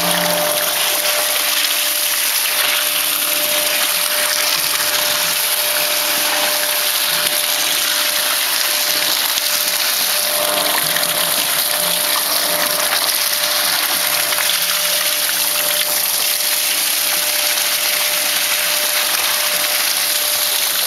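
Water being pumped at a steady rush, with the pump's constant hum under it, as water is run into the plaster-panel plant.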